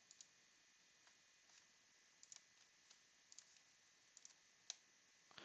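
Near silence with about a dozen faint, irregular small clicks, the sharpest one near the end.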